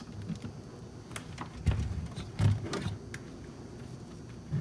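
Handling noise on the workbench as a handheld digital multimeter is set down beside the power supply: a few light clicks and taps, with two dull thumps less than a second apart around the middle.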